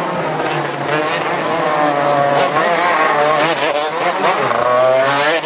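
Racing go-kart engine revving hard through a corner, its pitch repeatedly falling and climbing as the kart brakes and accelerates.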